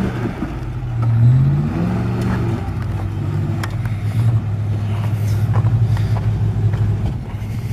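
Ford Expedition's V8 engine revving as the SUV drives past and climbs a dirt trail, its pitch rising twice in the first two seconds, then settling into a steady pulsing drone as it pulls uphill.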